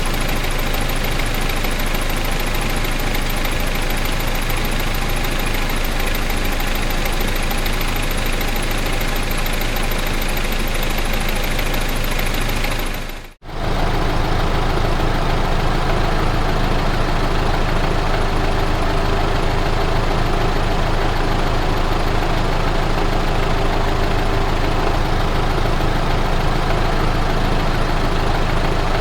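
Car engine running steadily at idle. About halfway through it cuts out for a moment, then a second idling engine recording follows, with a steadier hum.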